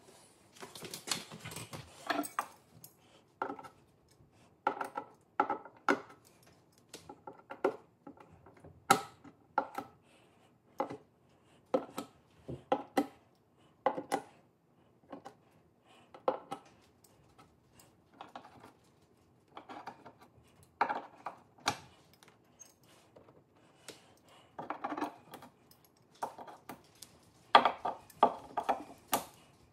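Pliers gripping and pulling old carpet-pad staples and nails out of a wooden stair tread: irregular sharp clicks and short metallic scrapes, about one or two a second, with a louder flurry near the end.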